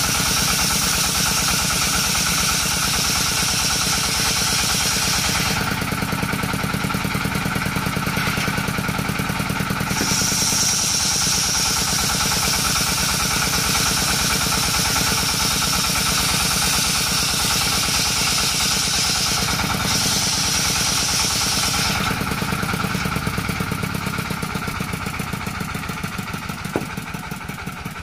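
Engine-driven sarkel (circular) saw running steadily, with a high whine that comes and goes as the blade works through coconut wood. The sound fades out over the last few seconds.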